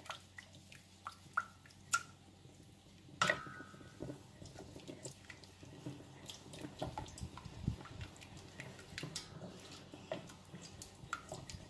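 Wooden spoon stirring a thin béchamel sauce in a stainless steel pot as milk is worked into the butter-and-flour roux: soft wet sloshing and scraping, with light knocks of the spoon against the pot. One knock a little over three seconds in is sharper and rings briefly.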